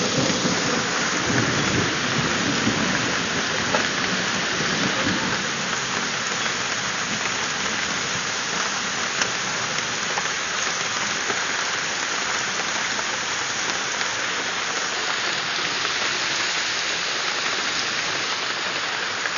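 Heavy rain pouring down in a thunderstorm, a steady loud hiss. A low rumble of thunder in the first few seconds fades away.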